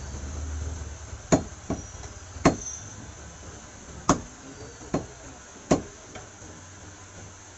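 Heavy butcher's cleaver chopping raw meat on a round wooden chopping block: about seven sharp chops at uneven spacing, four of them much louder than the others.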